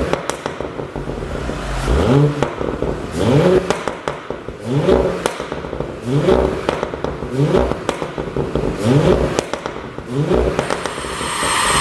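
Audi A7 55 TFSI's turbocharged 3.0-litre V6 exhaust being blipped over and over, each quick rise in revs followed by crackles and pops as the throttle closes, from a pop-and-crackle tune.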